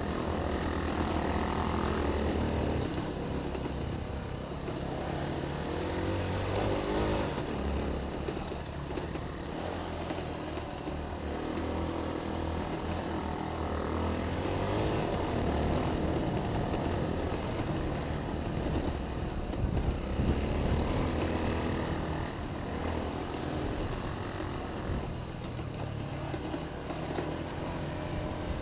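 Honda XR 250 single-cylinder four-stroke dirt bike engine running while riding a trail, its level rising and falling with the throttle.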